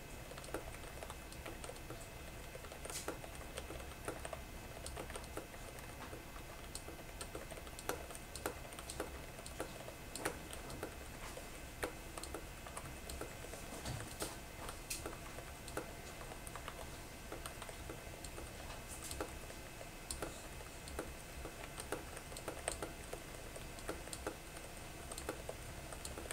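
Typing on a Firewolf M87 membrane keyboard: a quick, irregular stream of key presses during a typing test.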